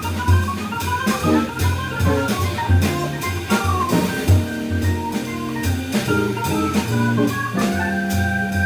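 Live jazz organ trio: an archtop electric guitar plays fast single-note solo runs over an organ bass line and drum kit with steady cymbals. Near the end, sustained organ chords come in.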